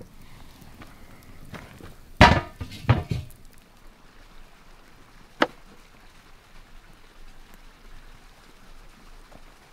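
A few loud wooden knocks and clatters, then a kitchen knife working on a wooden cutting board, with one sharp tap of the blade against the board.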